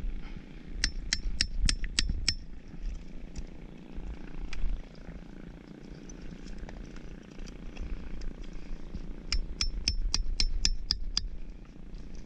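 Claw hammer tapping a clump of farmed oysters to knock shells apart. There are two quick runs of sharp taps, about four or five a second: one about a second in and another near the end, over a low rumble.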